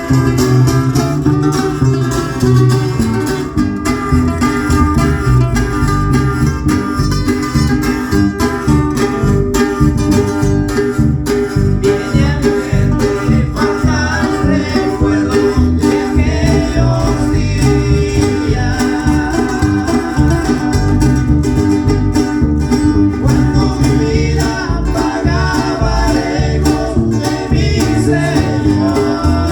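A small live band playing a Mexican-style tune on plucked strings: bajo quinto, requinto guitar and bass, with a voice singing along through the second half.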